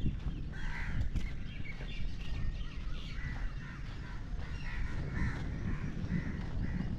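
Birds calling from the trees, many short scattered calls overlapping, over a steady low rumble of footsteps and wind on the microphone.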